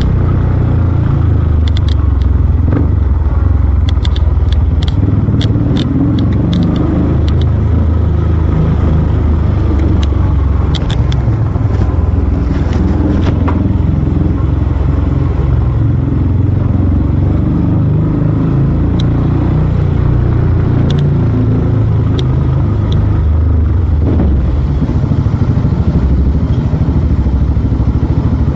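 Yamaha YBR 250 motorcycle's single-cylinder engine running on the move with a steady low rumble, and scattered sharp clicks and rattles, mostly in the first half.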